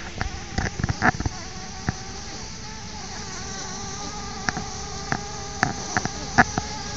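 Bumblebees buzzing in their opened nest: a wavering, several-pitched hum that grows steadier from about three seconds in, with scattered sharp clicks over it.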